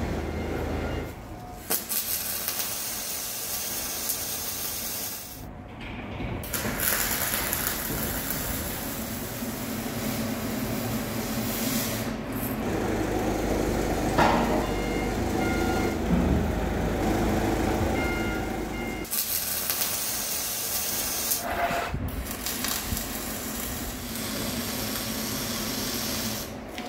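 Wire-feed welding arc hissing and crackling steadily while weld is laid on a steel excavator bucket, in several long passes with short breaks between them.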